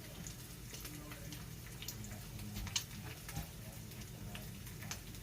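Egg frying in bacon fat in a cast iron skillet: scattered small pops and crackles over a low steady hum.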